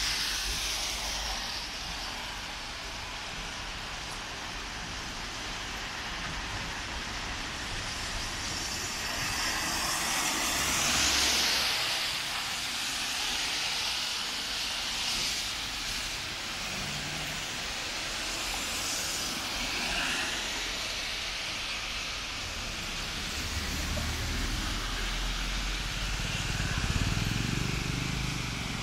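Steady hiss of rain with tyres swishing past on a wet road. One car passes loudly about ten seconds in, and near the end a heavier vehicle rumbles by.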